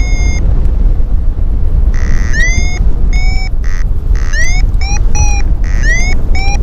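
Paragliding variometer beeping over steady wind rush on the microphone. Its short tones each rise in pitch and then hold. After a pause near the start they resume about two seconds in and come in quicker runs, signalling weak climb in a thermal.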